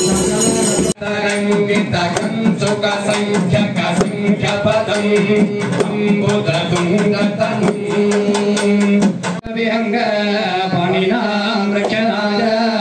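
South Indian temple music: drums beating a steady rhythm over a held drone and a melody line, with two sudden breaks, one about a second in and one near the end.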